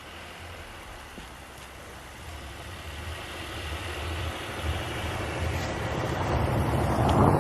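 Small car driving over snow, gathering momentum: a low engine drone with tyre and snow noise that swells steadily louder toward the end.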